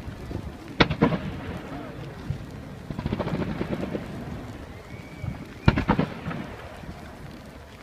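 Fireworks exploding: sharp bangs about a second in and a pair again near six seconds, with a rumbling, crackling haze between them.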